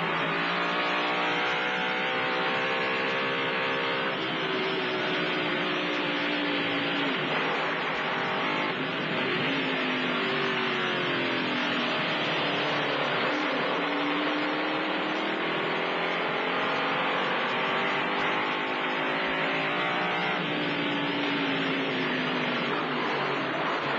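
Lancia-derived 2.5-litre V8 of a 1950s Ferrari Grand Prix car at racing speed, its revs climbing and dropping back several times as it accelerates, shifts and slows for corners.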